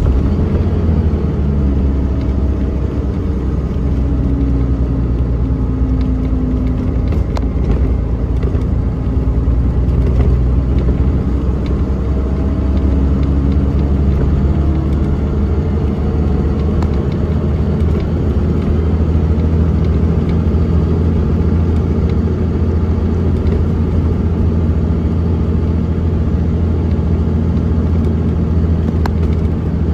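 Mercedes-Benz O405NH bus engine and drivetrain heard from inside the cabin while the bus drives along, a steady low hum whose pitch rises and falls several times in the first half, then runs steadier.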